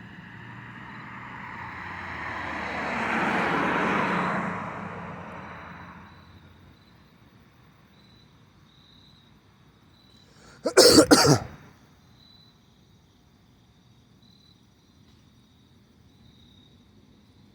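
A vehicle passing, its road noise swelling to a peak about four seconds in and fading away. About eleven seconds in, a person coughs loudly a few times. Insects chirp faintly throughout.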